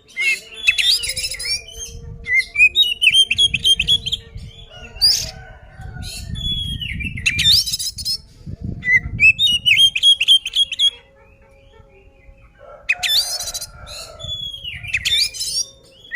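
Oriental magpie-robin (kacer) singing a loud fighting song: repeated bursts of rapid whistles and chattering notes, with a pause of about a second and a half about two-thirds of the way through.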